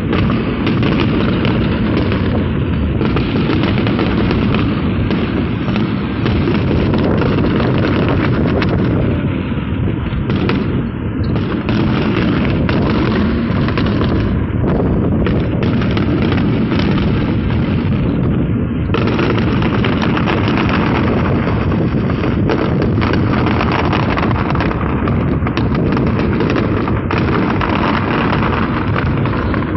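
Fireworks display: a dense, continuous barrage of explosions and crackling bursts, one on top of the next with no pause.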